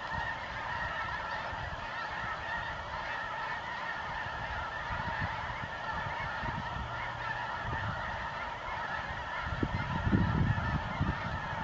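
A huge flock of snow geese calling all at once, a dense, unbroken chorus of honking. Irregular low thumps come through around ten seconds in and are the loudest part.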